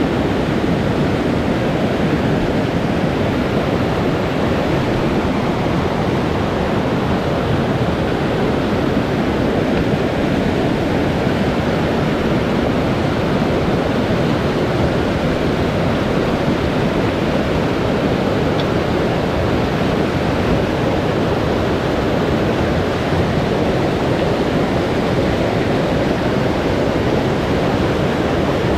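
Steady, loud rushing noise, strongest in the low and middle range, with no distinct events in it.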